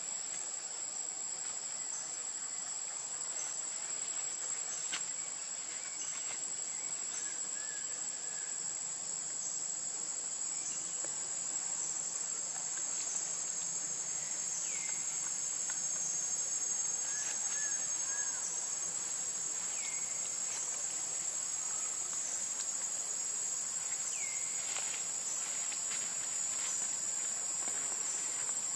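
Insects droning steadily in a high, unbroken pitch, with short falling chirps every four or five seconds in the second half.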